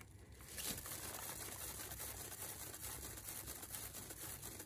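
Round acrylic-pour panel spinning on a turntable, flinging wet paint onto the plastic sheet around it: a steady whirring, pattering noise made of fine rapid ticks, starting about half a second in.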